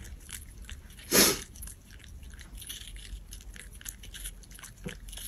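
Small white dog biting and chewing a cube of watermelon off a metal fork: soft wet crunching, smacking and clicking, with one much louder noisy burst about a second in.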